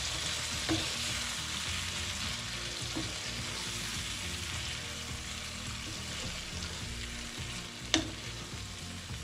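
Prawns in ghee and chili paste sizzling steadily in a pan as a wooden spatula stirs them, with a few sharp knocks of the spatula against the pan, the loudest about eight seconds in.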